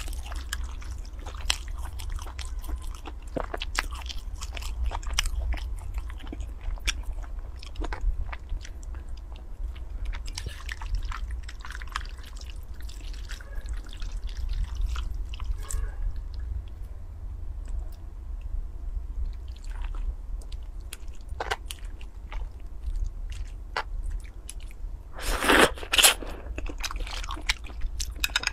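Close-miked eating sounds: wet chewing of wide flat noodles, with many small mouth clicks and smacks over a steady low hum. Near the end comes one louder burst lasting about a second.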